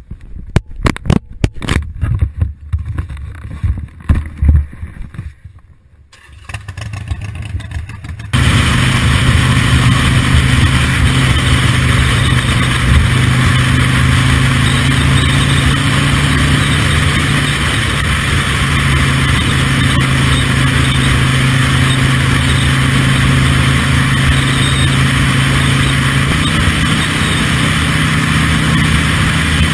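Irregular knocks and thumps, then, about eight seconds in, a cruiser-style motorcycle engine running steadily at road speed under wind rush. The engine's pitch rises slightly near the end.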